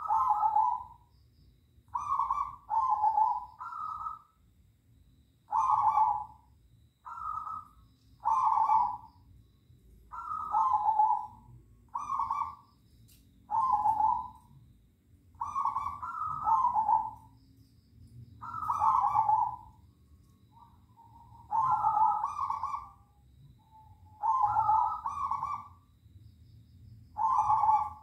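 Zebra doves (perkutut) cooing in turn, answering one another: short phrases of two or three coos, each about a second long, repeated every second or two.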